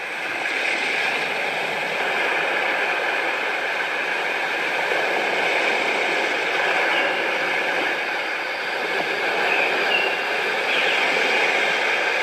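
Steady rushing surf-like water noise, fading in over the first couple of seconds, with a few brief high chirps late on.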